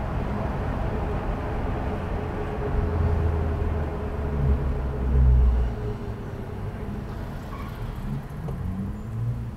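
Car driving in city traffic: a steady low road and engine rumble that swells louder for a few seconds in the middle before easing back.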